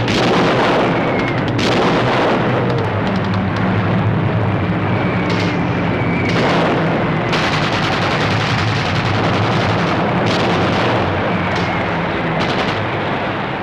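Battle sound effects: a continuous din of explosions and gunfire, with many sharp cracks among the rumbling, over low sustained music notes.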